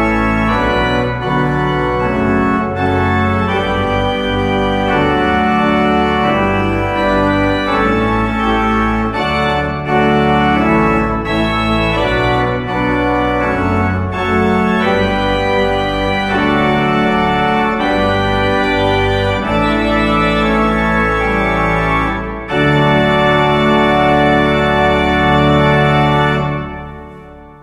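Organ playing full, sustained chords over a deep bass. It ends on a long held chord that dies away near the end.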